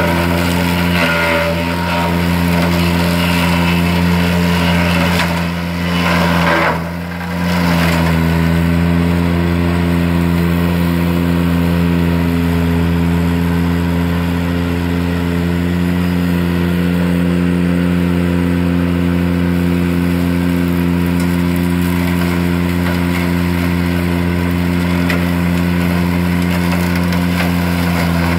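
Ventrac compact tractor's engine running steadily with its rough-cut mower deck working through brush and multiflora rose. The sound dips briefly twice, about six and seven seconds in.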